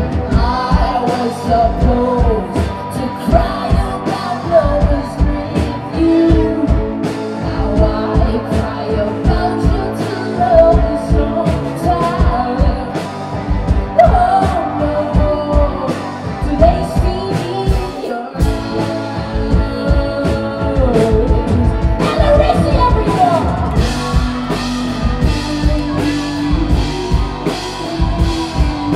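Live rock band playing loud through a club PA: electric guitars, bass and a drum kit keeping a steady beat, with sung vocals and bending melody lines over it. The band drops out for an instant a little past halfway, then comes back in.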